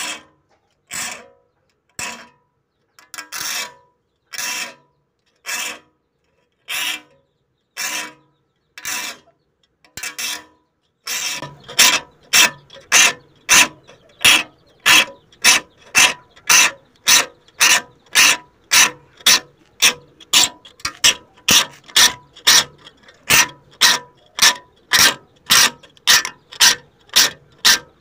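Repeated rasping or scraping strokes, about one a second, speeding up to two or three a second and growing louder about eleven seconds in.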